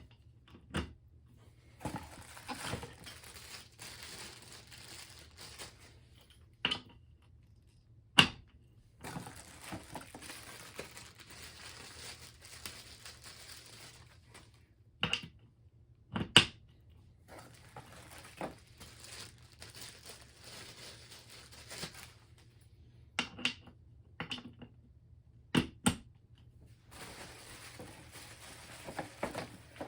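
Rollerblade-style caster wheels being pushed into an office chair base: scattered sharp plastic knocks and snaps, a few loud ones, with soft handling noise between.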